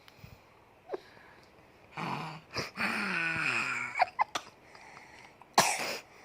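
A baby snoring and wheezing in sleep: separate noisy breaths, one drawn-out snore with a voice in it that falls in pitch about three seconds in, a few small clicks, and a short loud noisy burst near the end.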